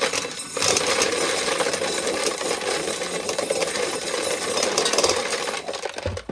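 Corn sheller running with corn going through it: a steady loud rattling and clattering of kernels and cobs that stops abruptly near the end.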